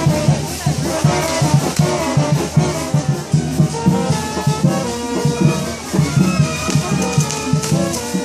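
Brass-band music with a pulsing beat and rattling percussion.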